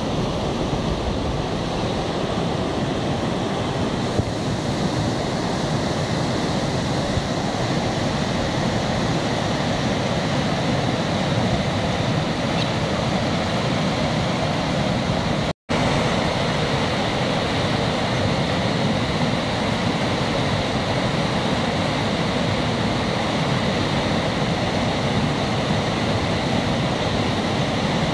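Floodwater on the River Thames pouring through a lock weir's sluice gates, a steady rush of water with the weir running close to its limit. It drops out for a split second about halfway through.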